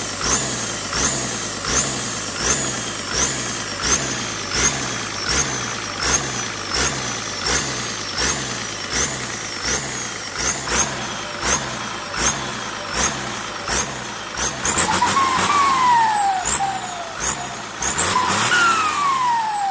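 Turbocharger for an SK200-3 excavator whistling and hissing as it spins, pulsing regularly about every three-quarters of a second. Past the middle, its whistle slides down in pitch twice.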